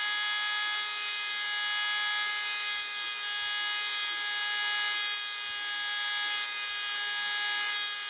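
Dremel rotary tool with a diamond burr grinding the curved section of a steel pocket-knife screwdriver blade. A steady high-pitched whine runs under a grinding hiss that swells and fades several times.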